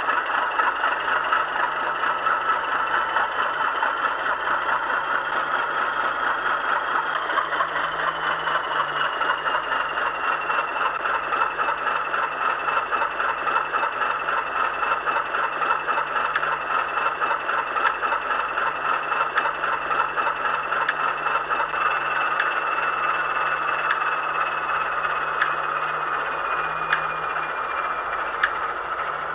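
Class 37/9 Mirrlees diesel engine sound from a model locomotive's DCC sound decoder, played through a small speaker: the engine runs steadily at standstill, with a thin whine that slowly falls in pitch from about a quarter of the way in. A few sharp clicks come near the end.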